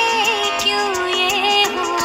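Background music: an Indian film-style song with a wavering, ornamented melody over a light, steady beat.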